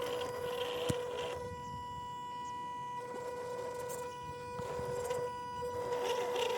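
MN128 RC crawler's 390 electric motor and gearbox whining at a steady pitch as the truck drives at constant throttle, with a single click about a second in.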